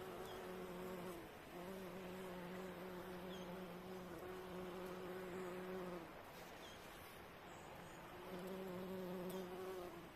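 Bumblebee buzzing in flight, a steady low hum that drops away briefly about a second in and again for a couple of seconds past the middle, over a soft steady wash of sea waves.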